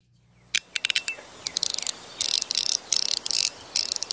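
Sound Emperor metal fidget slider being slid back and forth: a few sharp metallic clicks, then a quick series of short buzzing rattles as the stainless-steel plates slide and snap, with a faint ring after some of the clicks.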